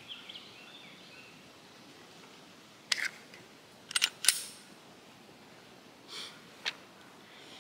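Sharp clicks and knocks of Glock pistols and their magazines being handled on a bench: two close clicks about three seconds in, a quick cluster of three a second later, and two softer ones near the end.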